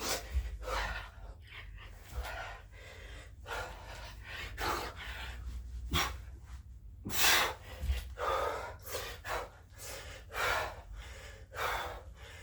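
A man breathing hard and fast from the exertion of burpees, with a run of loud gasping breaths in and out, about one to two a second.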